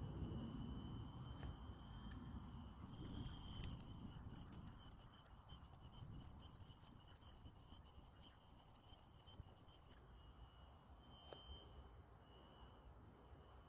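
Insects trilling in the forest: several steady high-pitched tones, some pulsing a few times a second, over a faint low rumble.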